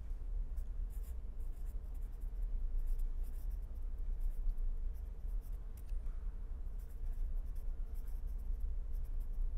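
Pen writing on paper, a run of short, irregular scratchy strokes over a steady low hum.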